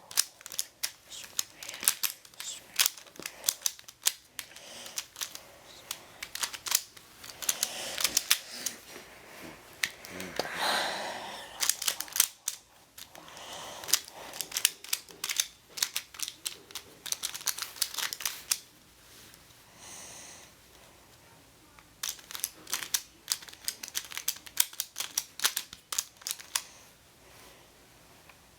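Plastic pieces of a triangular twisty puzzle clicking as they are turned quickly during a timed solve. The clicks come in irregular rapid runs, with a brief rustle about ten seconds in and a pause of a few seconds about two-thirds of the way through.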